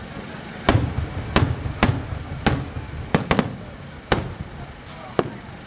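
Aerial firework shells bursting overhead: a quick series of about nine sharp bangs, each followed by a low rumble, with two close together a little past three seconds in.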